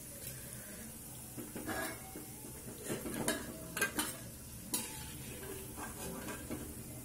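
Koftas sizzling in hot oil in a metal kadhai, with a metal skimmer scraping and clinking against the pan several times as the fried koftas are lifted out; the clinks are loudest in the middle.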